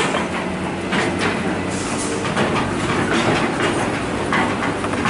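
Heavy diesel machinery running steadily as an excavator tows a stuck, loaded Fuso 6x2 dump truck, with irregular metallic clanks and knocks over the engine noise.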